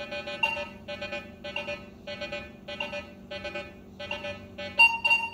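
Minelab Vanquish 540 metal detector beeping as its coil sweeps back and forth over nails and a penny. It gives a run of short low tones, about two a second, with brief higher blips, and a steadier higher tone comes in near the end. On the full sweep it struggles to pick the penny out from the surrounding iron nails.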